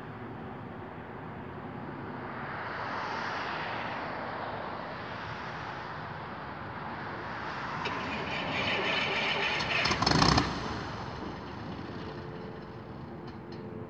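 A Piper PA-28 Warrior's four-cylinder engine starting: broad rushing noise builds, peaks in a short loud burst about ten seconds in, and then settles into a steady running note with an even hum.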